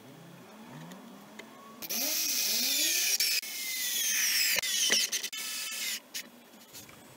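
Cordless drill-driver driving screws through an MDF board into the bed of a CNC machine, its whine dropping in pitch as each screw bites, in a few runs with short breaks from about two to six seconds in.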